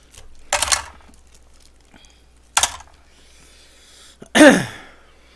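A man coughing three times while eating, each a short harsh burst. The last and loudest ends in a falling voiced grunt.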